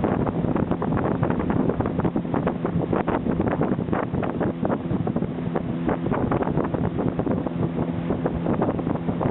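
A motor running steadily, most likely a boat engine, under heavy wind buffeting the microphone; the sound cuts off suddenly at the end.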